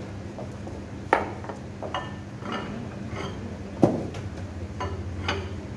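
Several sharp metal clinks and knocks from a hand tool striking the steel coupling and frame under a vertical electric mixer motor, the loudest about four seconds in, over a steady low hum.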